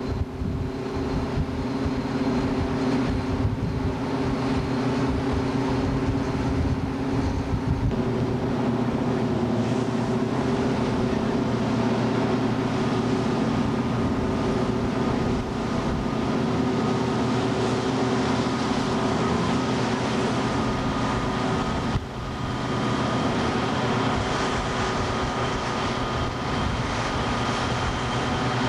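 A boat's engine running at a steady drone, with the rush of wind and water over it.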